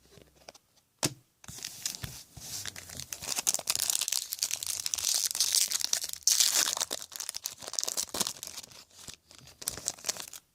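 Wrapper of a Topps Chrome trading card pack being torn open and crinkled: a crackly tearing and rustling that starts about a second and a half in, is loudest midway and thins out near the end, after a single sharp click about a second in.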